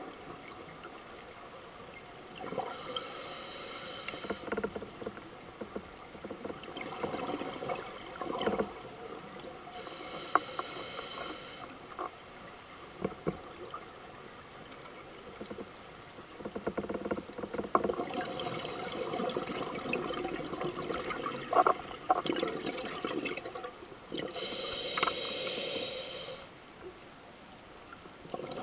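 Scuba diver breathing through a regulator underwater: three long hissing inhalations, a few seconds in, about ten seconds in and near the end, with bubbling and crackling exhaled air between them.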